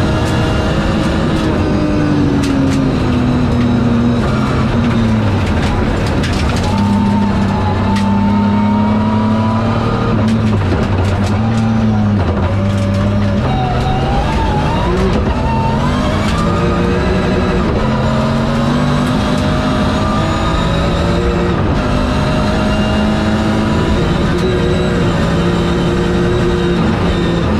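BMW rally car's engine heard from inside the cabin, driven hard on gravel. Its pitch falls in the first few seconds, then climbs through repeated upshifts, with a sharp rise about halfway through. There are scattered sharp clicks over the tyre and road noise.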